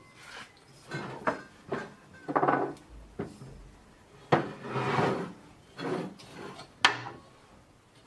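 Parts of a bicycle truing stand being handled and shifted on a workbench: a string of scrapes and rubs with a few sharp knocks, the sharpest about four seconds in and again near seven.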